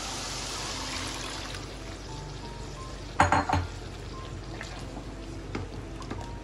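Chicken masala sizzling in oil in a pot as water is added, the sizzle easing off. A silicone spoon stirs and knocks against the pot, with a loud clatter of knocks about three seconds in and a few lighter taps after.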